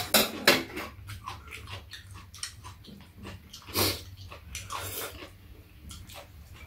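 People slurping doenjang soup from metal spoons and chewing: a series of short, sharp slurps, the loudest in the first half second and another about four seconds in, over a steady low hum.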